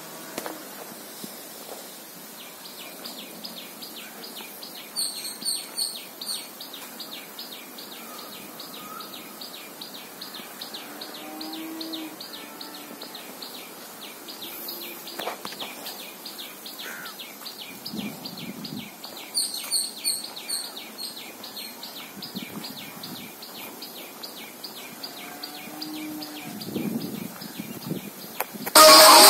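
Birds calling outdoors: two bursts of loud, sharp high chirps stand out over a fast, even series of high pulsing calls that runs through most of it. Loud music cuts in suddenly near the end.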